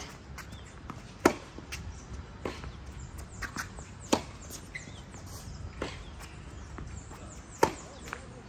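Tennis rally: sharp pops of balls struck by rackets and bouncing on a hard court, six in all, the loudest from the near end of the court and fainter ones from the far end.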